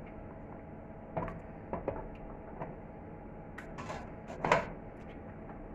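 Glass preserving jars knocking against each other and the stainless steel pot as they are shifted in the liquid: a string of light knocks and clinks, the loudest about four and a half seconds in.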